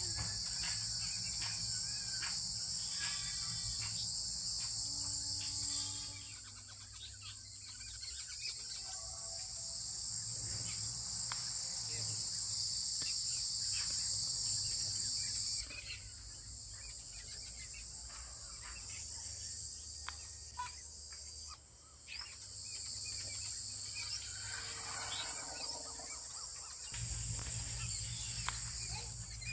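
Dense insect chorus, a steady high shrill, with a steady low rumble underneath and a few faint short chirps and clicks. The shrill drops and rises in level a few times.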